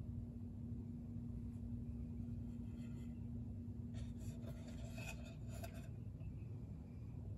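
Faint rubbing and scraping of hands on a bamboo cutting board as it is turned over and handled, clustered a few seconds in, over a steady low hum.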